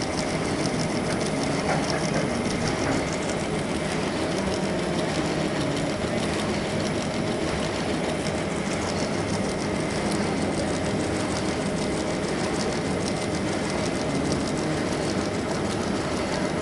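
YC520RY paper cup printing machine running at speed: a steady, fast mechanical clatter of its rollers and feed that keeps an even level.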